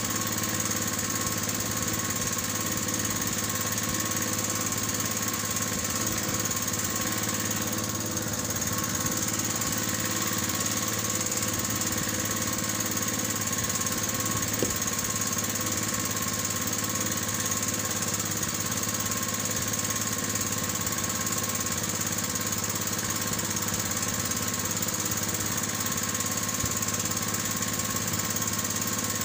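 Small engine on an outrigger fishing boat running steadily at constant speed.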